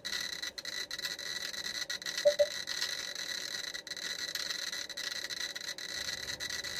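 GQ GMC-320 Plus Geiger counter's beeper clicking so fast, at around 4,200 counts per minute from a gamma-emitting plate, that the clicks run together into a steady crackling hiss. A brief double blip sounds a little over two seconds in.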